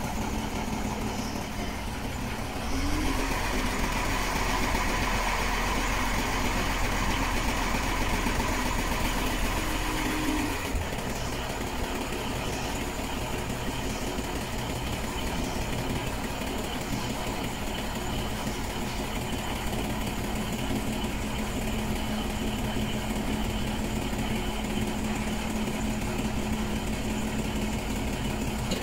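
Isuzu Giga dump truck's diesel engine running while the hydraulic cylinder raises the tipper body. The engine runs faster and louder from about three seconds in until about ten seconds, then settles back to a steadier speed as the bed keeps rising.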